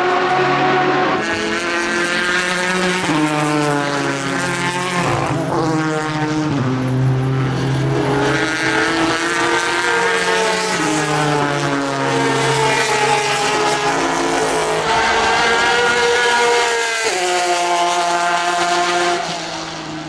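Porsche 991 RSR race cars' naturally aspirated flat-six engines at full race pace, pitch climbing through the gears and dropping on shifts and braking as the cars pass, several times over.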